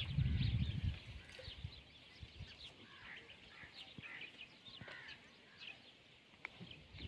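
Many small birds chirping, short high calls scattered throughout, with a low rumble during the first second.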